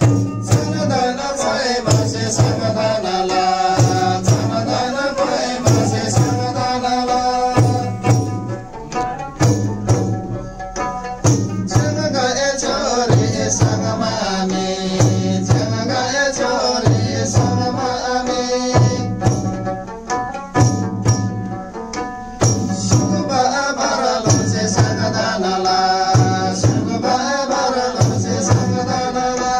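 A group singing a Tamang ritual song together while beating hand-held damphu frame drums in a steady beat of about one stroke a second.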